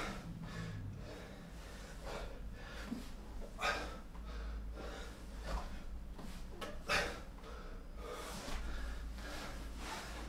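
A man breathing hard during sit-ups, with a sharp exhalation roughly every second and a half.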